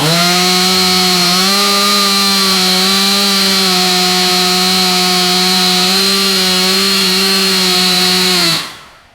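Gas-powered two-stroke chainsaw engine running at a steady rev. Its pitch steps up slightly about a second in, then holds level until the saw stops and fades out near the end.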